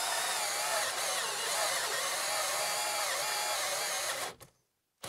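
Kobalt brushless hammer drill on speed 2 driving a 3-inch hole saw through wood: the motor runs steadily under load, its pitch wavering slightly as the saw cuts. It stops suddenly near the end.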